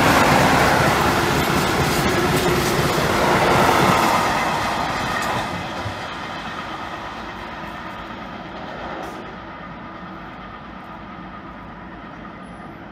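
Freight train of covered wagons rolling past on the rails, loud for the first four seconds or so, then fading steadily as the tail of the train draws away.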